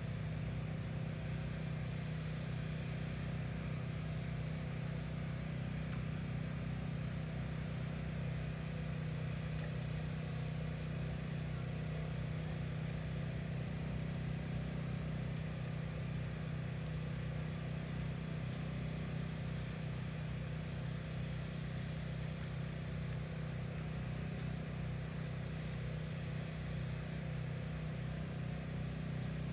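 A steady, unchanging low motor hum with no rise or fall in pitch, with a few faint short ticks on top.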